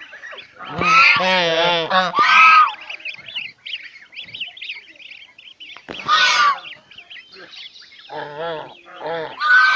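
Domestic geese honking, a few loud drawn-out calls with gaps between them, while goslings peep faintly in the pauses.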